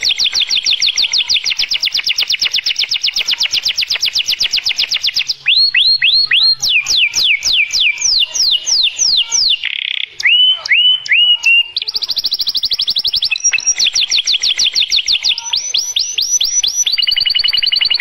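Canary singing: long rolling trills of very fast repeated notes, broken about five seconds in by a run of slower whistled notes that sweep down in pitch, then back into fast trills for the last several seconds.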